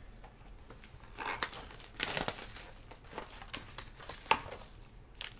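Foil wrapper of a trading-card pack crinkling and rustling as it is handled, in irregular crackles. The loudest come about two seconds in and again just past four seconds.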